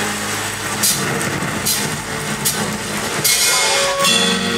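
Acoustic guitar strummed at an even pace, about one stroke every second, before a clearly ringing chord near the end as the song gets under way.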